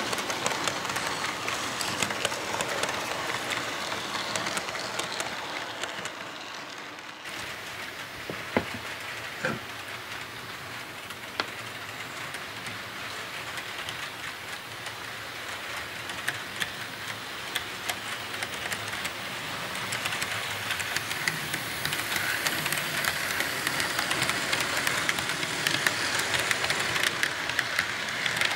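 HO-scale model freight cars rolling along the track: a steady rattle of many small clicks from the wheels, with a couple of brief squeals about nine seconds in, growing louder in the last third as the cars pass closer.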